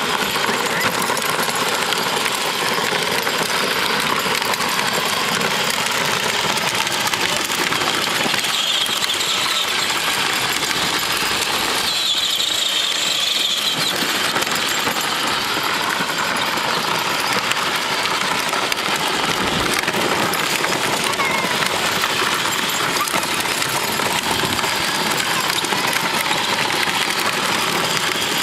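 Battery-powered Barbie Jeep Wrangler ride-on toy driving over dirt: its electric motors and gearboxes whir and its hard plastic wheels roll over the ground, a steady, even noise.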